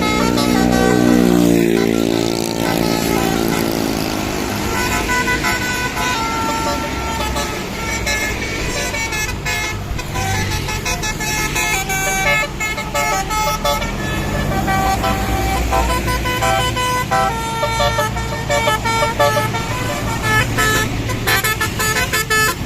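Tour bus 'telolet' musical horns (Basuri type) playing quick runs of high notes, over the rumble of bus engines. Near the start, a deep pitched tone glides down in pitch.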